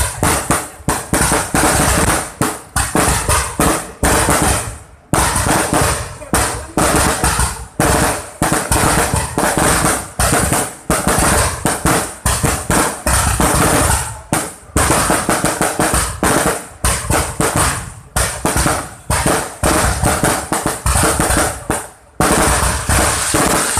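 Fireworks barrage: aerial shells firing and bursting in rapid succession, several loud bangs a second, with brief lulls about five, fourteen and twenty-two seconds in.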